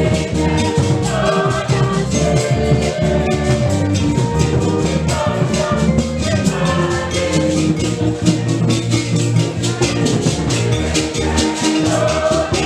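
Upbeat music with a fast, steady shaker rhythm over pitched instruments, with singing.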